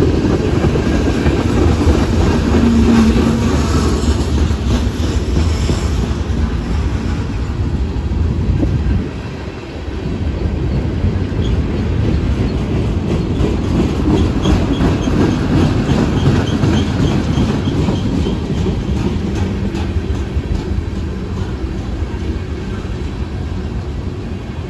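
Freight train cars rolling past at close range: a steady heavy rumble with the clickety-clack of wheels over rail joints, and a faint high squeal from the wheels about halfway through.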